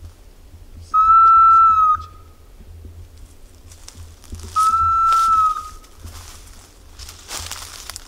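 A hunter's dog whistle blown in long, steady single-note blasts, each about a second long, twice about three and a half seconds apart. This is the signal used to call and steer a woodcock dog. Between the blasts are gusts of wind and rustling, with a low wind rumble on the microphone.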